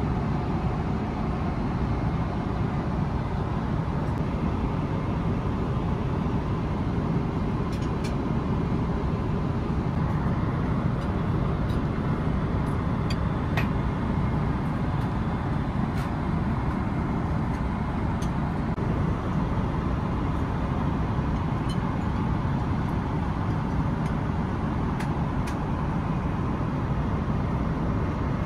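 Steady low roar of airflow and engine noise inside the cabin of a Boeing 777-300ER airliner in flight, with a few faint clicks.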